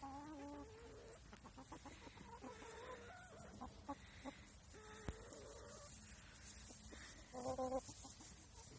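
Chickens clucking and calling: a handful of short, wavering calls a second or two apart, the loudest near the end.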